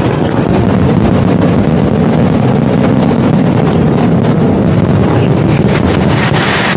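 Dense fireworks barrage: many bangs and crackles close together, merging into a loud, continuous rumble.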